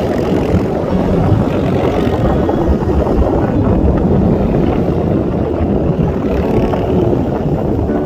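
Strong wind buffeting the microphone: a loud, steady, rough low rumble.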